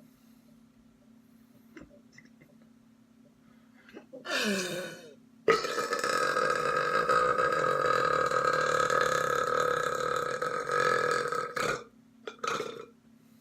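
A person belching: first a short burp that falls in pitch, then a long belch held at a steady pitch for about six seconds, ending in a brief short sound near the end.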